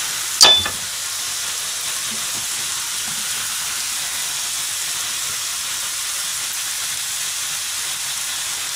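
Steady sizzle of an okonomiyaki frying in a pan, its pork belly layer on the bottom. About half a second in, a single sharp knock as a frying pan is set down on the gas burner's grate.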